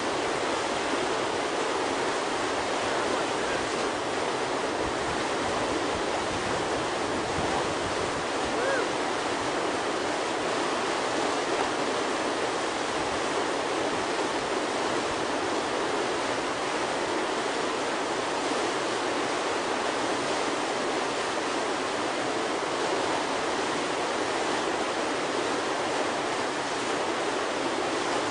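Steady rushing roar of whitewater pouring through a river hole.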